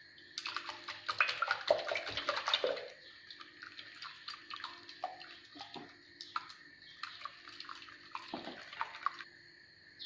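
Wire whisk beating a runny egg and yogurt batter in a glass bowl: quick wet slaps and clicks of the wires against the glass, fastest in the first few seconds, then slower and more scattered.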